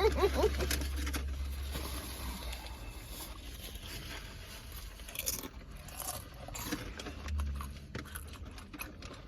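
Eating sounds: a spoon scraping in a takeout bowl and chewing, heard as scattered small clicks and scrapes over a low steady hum.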